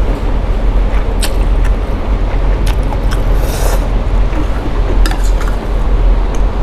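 A few light clinks of a spoon or chopsticks against a noodle bowl, with a brief slurp near the middle, over a steady low rumble.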